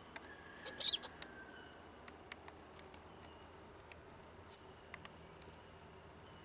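A steady, thin, high insect drone, with scattered faint clicks and two short, sharp, high-pitched chirps: the loudest about a second in, a shorter falling one at about four and a half seconds.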